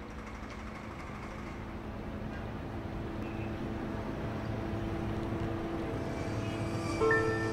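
Urban traffic rumble fading in slowly and growing louder. About seven seconds in, a bell-like music note comes in suddenly.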